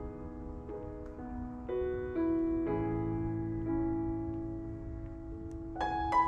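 Soft background music led by piano: slow sustained chords changing every second or so, with a brighter, higher entry near the end.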